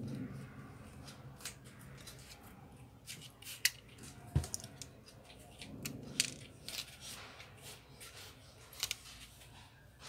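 Scattered light clicks and taps of a plastic spudger and fingers working on an opened tablet's battery and frame, prying the battery loose, with a few sharper knocks.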